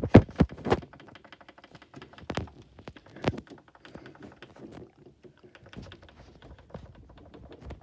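Scattered light knocks and taps, several in the first second and a louder one a little over two seconds in and another a little over three seconds in, with a faint fast ticking buzz beneath them at first.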